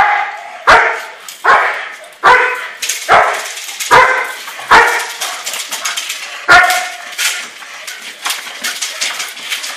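German Shepherd on a leash barking in protection bite-work training, a run of about eight loud barks, roughly one every 0.8 seconds, dying down after about seven seconds.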